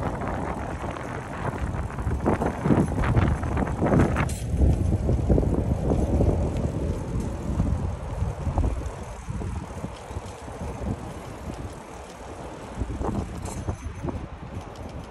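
Wind buffeting the microphone of a camera carried on a moving bicycle, a low rushing noise that eases off about halfway through.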